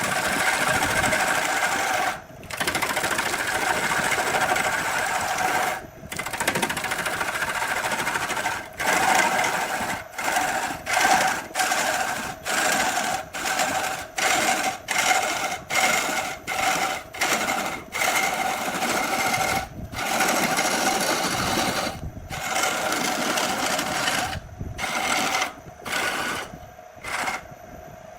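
An electric power tool's motor running, switched on and off: a few long runs at first, then a string of short bursts about one a second, with longer runs again later.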